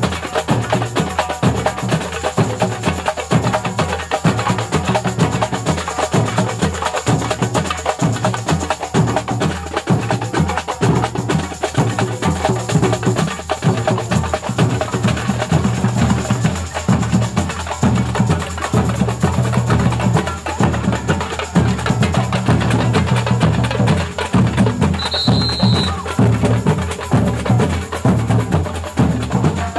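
Samba drum band (bateria) playing a dense, driving batucada rhythm: deep surdo bass drums struck with mallets, under sharper, higher hand percussion.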